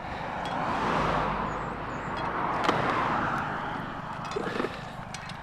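Road traffic going by: two passing cars, each swelling and fading as tyre and engine noise, with a few light clicks on top.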